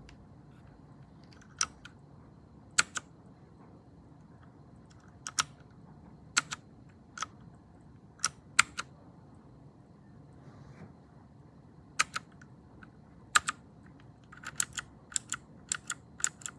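Keys being pressed on a mechanical keyboard with linear red switches: single sharp clacks, often in quick pairs, spaced a second or more apart at first, then a faster run of keystrokes near the end.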